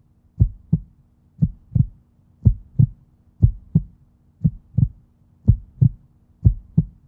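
Heartbeat sound effect: pairs of low thumps, lub-dub, repeating steadily about once a second.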